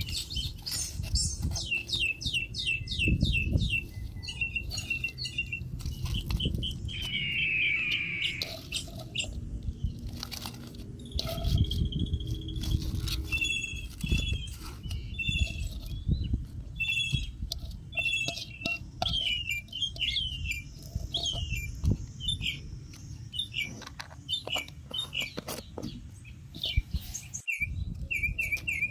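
Small birds chirping, short high notes repeated in quick runs, over a low rumble with scattered clicks and knocks.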